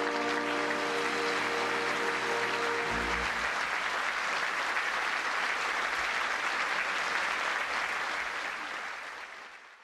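Audience applauding under the band's final held chord, which stops about three seconds in; the applause carries on alone and fades out near the end.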